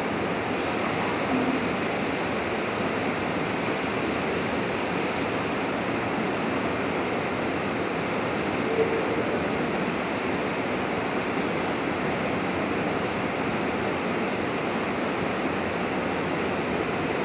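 Steady, even rushing noise of large air-handling or exhaust ventilation in a fire-test hall, holding one level with no changes.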